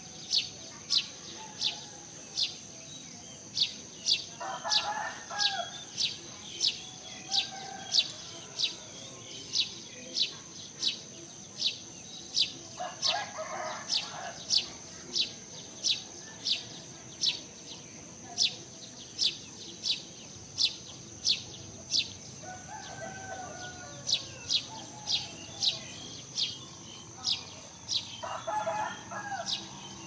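Village outdoor ambience: a sharp, high chirp repeats about twice a second over a steady high-pitched insect drone. A rooster crows four times, each call about a second long.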